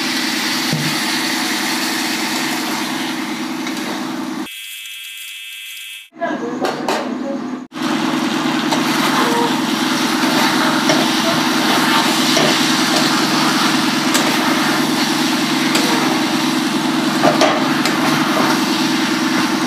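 Steady hiss and sizzle of potato curry cooking in a steel kadhai on a gas stove, with a few light scrapes of a steel spatula against the pan. Briefly cut out and muffled about five seconds in.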